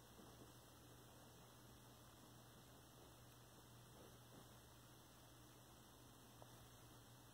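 Near silence: room tone with a faint steady low hum and one tiny click near the end.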